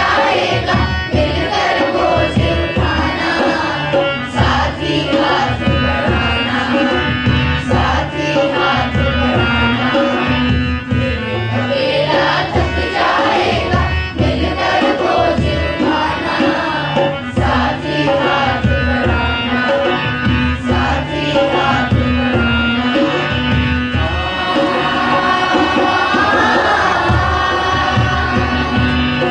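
A group of schoolchildren singing a song together in chorus, over a regular drum beat.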